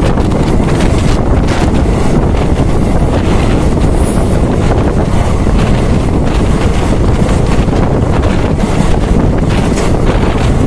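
Wind buffeting the microphone of a phone held out of a moving passenger train, over the steady rumble of the train running along the track.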